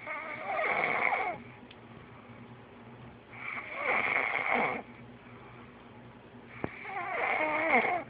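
A sleeping person snoring: three long snores, each lasting over a second, coming about every three and a half seconds with quiet breathing between them.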